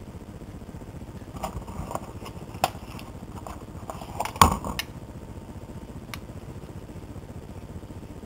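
Handling of a Zippo lighter's insert: a scattered series of light clicks and knocks from about a second and a half in. The loudest knock comes about four and a half seconds in, and one last thin tick follows about six seconds in.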